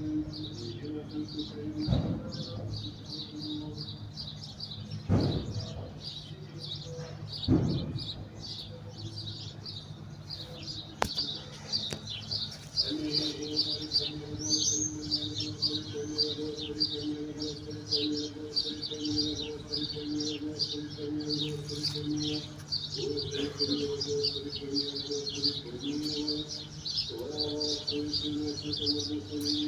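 Many small birds chirping rapidly and without pause. A few dull knocks come in the first several seconds, and about halfway through a steady low hum sets in.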